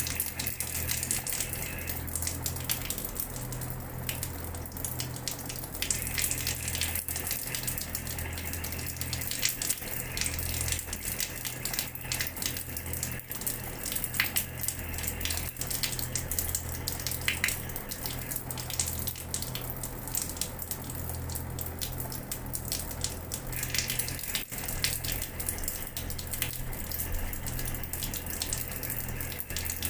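Water running from a tap and splashing onto a hard floor: a steady rush broken by many small splashes, over a low steady hum.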